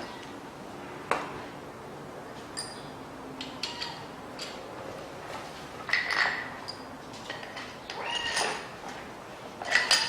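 Metal tools and engine parts clinking and tapping against each other: a series of separate sharp knocks, several with a brief metallic ring, the loudest about six seconds in and again near the end.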